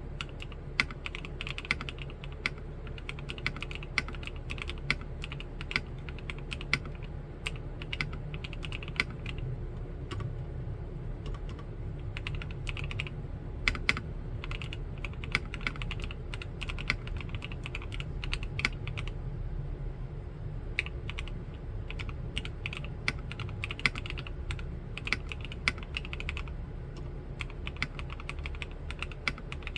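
Continuous typing on an Omnitype Bauer Lite mechanical keyboard with Gateron Snow Rabbit switches in a plastic case: a quick, uneven run of clacky keystrokes, with a few louder key strikes here and there.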